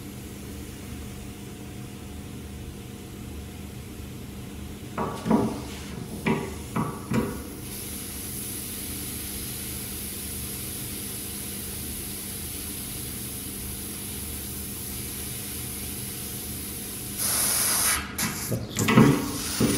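Radiator bleed valve opened with water pump pliers, a few knocks as the pliers work the valve, then trapped air hissing steadily out of the steel panel radiator. Near the end the hiss gets louder and breaks up into spurts as water reaches the valve, the sign that the radiator is full.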